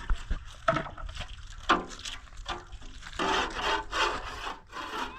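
Rubbing and scrubbing strokes, scattered at first, then a steady run of about two strokes a second in the second half: typical of clothes being scrubbed by hand.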